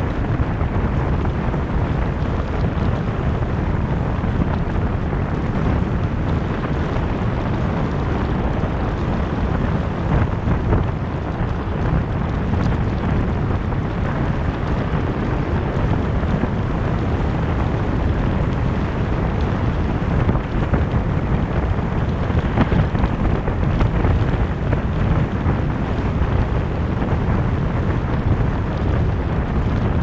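Steady low rumble of wind buffeting the microphone and tyre noise from a car driving at road speed, without a break.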